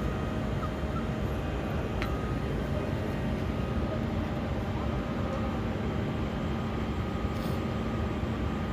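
Steady mechanical hum with a few constant tones, unchanging in level.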